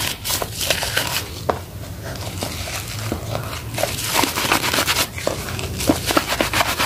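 Wet soap lather squelching and crackling as hands squeeze and knead a soaked sponge full of foam, with many small irregular pops and squeaks.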